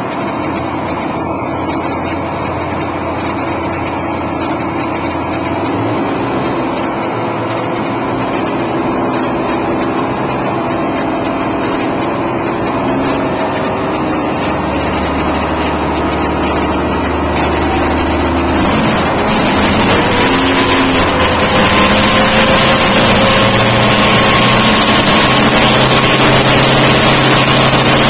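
Heavy diesel engines of a Case Quadtrac tractor and a tracked armoured vehicle running hard under load as they pull against each other. The engine note shifts about halfway through and grows louder from about two-thirds of the way in.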